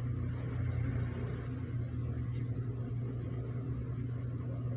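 Steady low hum with a faint even hiss, unchanging throughout: background room noise from an appliance or mains hum.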